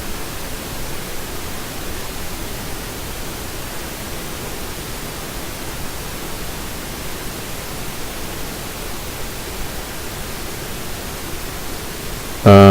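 Steady, even hiss with nothing else standing out: the recording's background noise while no one speaks.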